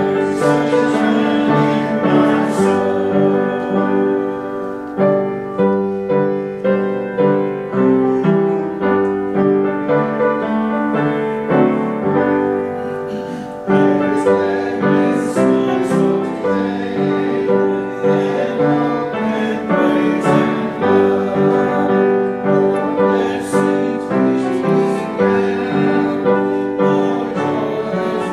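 Piano playing a hymn tune in full, steady chords, with a short break between phrases about halfway through.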